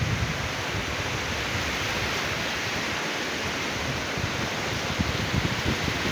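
Steady hiss of wind and sea surf, with wind buffeting the phone microphone in irregular low rumbles.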